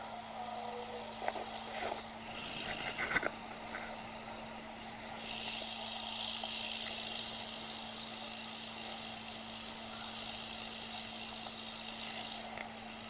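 A steady, hissing drone like a distant aircraft engine comes in about five seconds in, holds for about seven seconds and stops; the ghost hunters take it for phantom airplane sounds that were not there at the time. Before it, a few sharp clicks and knocks, over a constant low electrical hum.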